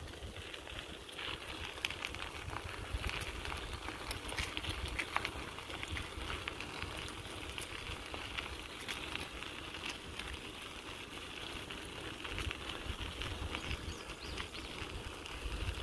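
Bicycle tyres rolling over a gravel towpath: a steady crunching hiss dotted with many small crackles of stones, over a low rumble.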